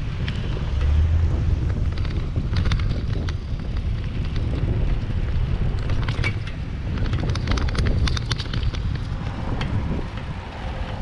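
Wind buffeting the microphone of a moving bicycle, with a low steady rumble from riding on asphalt and scattered sharp clicks and rattles throughout.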